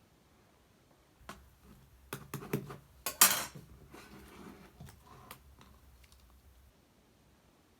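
Clear slime being pressed and squished by hand, giving a run of sticky clicks and pops for about five seconds, loudest a little past the middle, then it stops.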